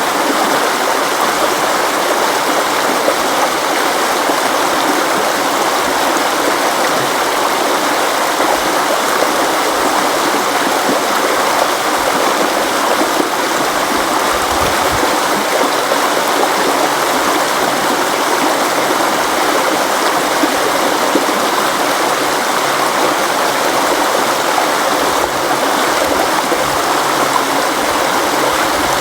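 River water flowing steadily: an even, unbroken rush.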